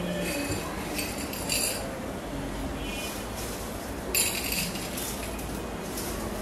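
A metal spoon scooping dry popcorn kernels in a steel bowl, clinking against the bowl while the hard kernels rattle, in a string of short irregular bursts.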